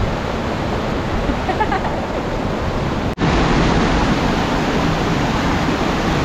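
Steady rush of fast-flowing stream water. About three seconds in it cuts out for an instant, then comes back a little louder.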